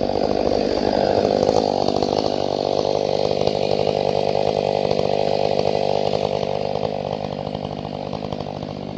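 Ported Stihl MS500i fuel-injected two-stroke chainsaw running steadily at high speed, growing somewhat quieter over the last few seconds.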